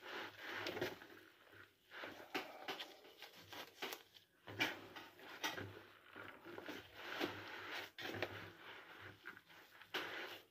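Gloved hands rubbing and kneading crumbly kibbeh dough of bulgur, semolina, flour and oil in a plastic bowl, working the oil in: soft, irregular rustling and squishing scrapes, roughly one or two a second.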